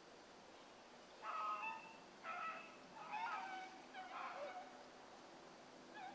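Distant dogs baying in several short, faint calls about a second apart: young rabbit dogs giving voice as they run a rabbit.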